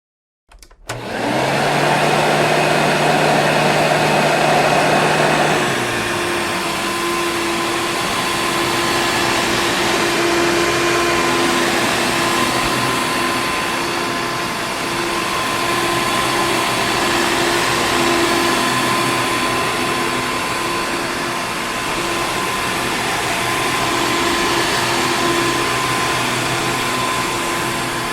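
Vacuum cleaner switched on about half a second in, quickly reaching a steady whirring hum. Around six seconds in the level dips slightly and the pitch of its hum shifts; it then keeps running steadily with small rises and falls.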